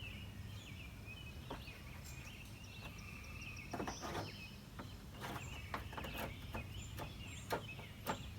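Scattered light clicks and taps of plastic trim clips and parts being handled, over a steady low background hum with birds chirping for the first few seconds.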